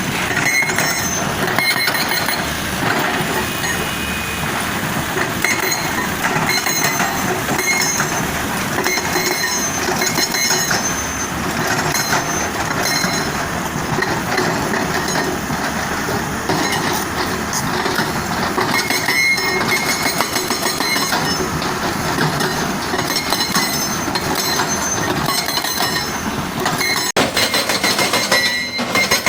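Excavator-mounted hydraulic breaker hammering continuously, with metallic clanking over the running engine. The sound changes abruptly near the end.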